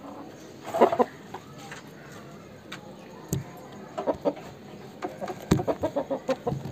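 Aseel chickens clucking: a loud burst of clucks about a second in, a couple more around four seconds, and a quick run of clucks near the end. Two sharp knocks fall between them.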